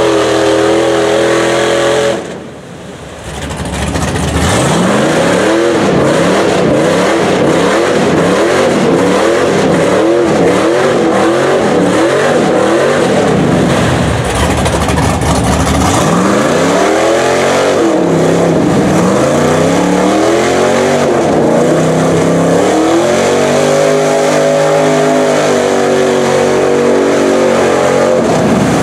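Single-cab Chevrolet Silverado pickup's engine at full throttle in a deep mud hole. The revs rise and fall about once a second as the tires spin and bite, then swing in slower, wider sweeps and hold high near the end. The sound drops briefly about two seconds in.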